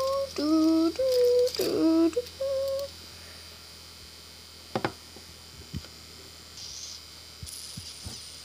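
A child's voice humming or singing a short wordless tune of about five held notes, lasting about three seconds. Then a few light taps and clicks of plastic toys and paper on a wooden floor.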